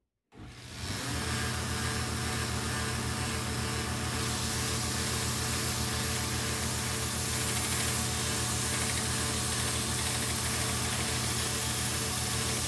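Small benchtop narrow-belt sander starting up and running steadily with a hum, while the curved edge of a thin 1/16-inch stainless steel sheet is ground against its belt with a hiss.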